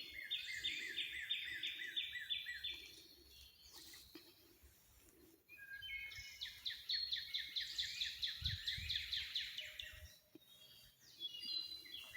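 A songbird singing phrases of quickly repeated down-slurred notes, about four a second: one phrase at the start, a longer one in the middle, and another starting near the end.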